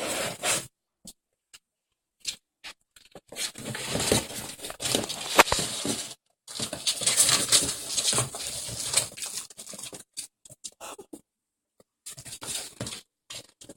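Ferrets scrabbling and scratching at a box, claws scraping and pattering in irregular bouts with short pauses between them.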